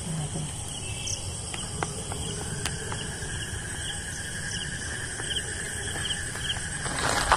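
Insects, crickets among them, chirping and trilling steadily, with a short noisy burst near the end.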